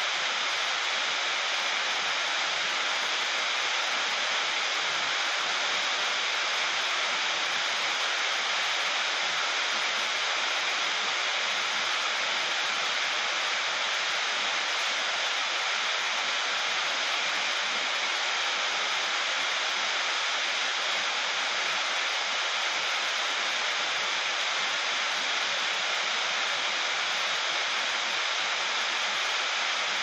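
Heavy rain falling on a sheet-metal roof: a dense, steady hiss that stays even throughout, with no thunder.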